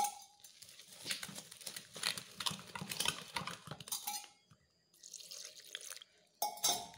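Wire whisk stirring wet gram-flour batter in a steel bowl. Its wires clink and scrape against the metal in many irregular ticks, with one sharp clink at the start and a short pause about two-thirds of the way through.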